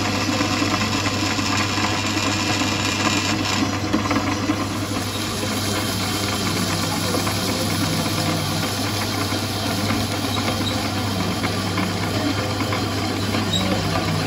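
Large twist drill boring into a steel disc-harrow hub: the machine's steady motor hum under a constant grinding of the cut as steel chips curl away.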